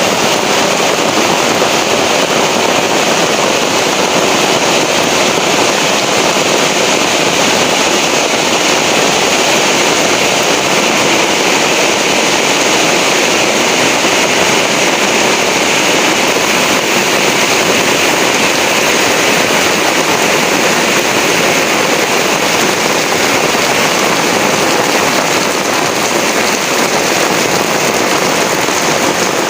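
Heavy rain pouring down steadily, a dense, unbroken hiss of drops.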